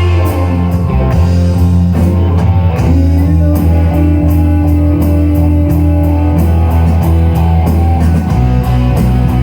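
Rock band playing an instrumental stretch between vocal lines: guitar with a long held note in the middle, over bass and a drum kit keeping a steady cymbal beat.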